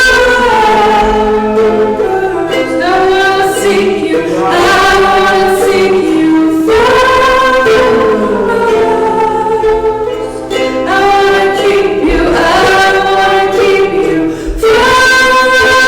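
Worship singing: several voices singing together in long held phrases.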